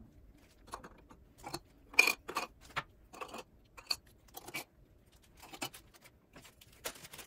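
Small tools and a marker being handled and set into the plastic tool cups on a sock knitting machine's base: a string of light clicks and clatters, the loudest about two seconds in.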